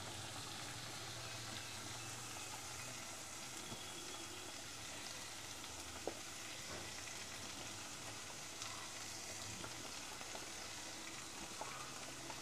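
Fish curry gravy bubbling at the boil in a clay pot, a steady faint hiss, with a few soft knocks as pieces of carp are put into it.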